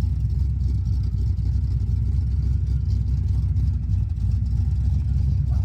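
1967 Pontiac Firebird's 400 cubic-inch V8 running steadily, a low, even exhaust rumble.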